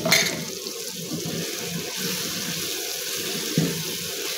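Onion-tomato masala with freshly added ginger-garlic paste and turmeric frying in oil in a kadai, sizzling with a steady hiss as it is bhuna'd (fried down). A steel slotted spatula scrapes the pan at the start and again about three and a half seconds in.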